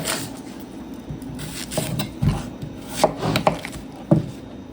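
Kitchen knife slicing an onion on a cutting board, with irregular knocks of the blade striking the board and some rustling between them.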